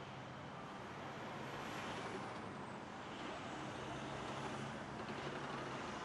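Steady outdoor din of vehicle engines running, with a low, even hum under a broad hiss.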